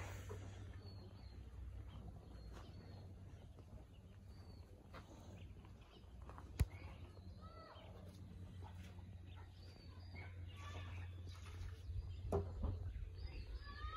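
Small birds chirping on and off, the short calls growing more frequent in the second half, over a steady low rumble. One sharp click comes about six and a half seconds in.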